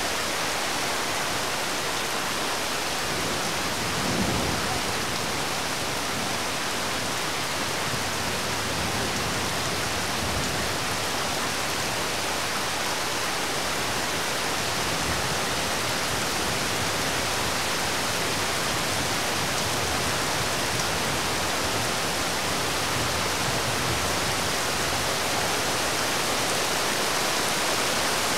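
Steady rain falling, an even hiss. About four seconds in comes a brief low rumble.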